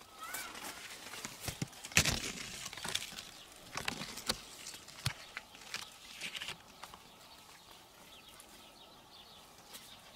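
Mulberry leaves and twigs rustling and crackling as a hand pushes through the branches: irregular clicks and brushes, loudest about two seconds in, dying down after about seven seconds.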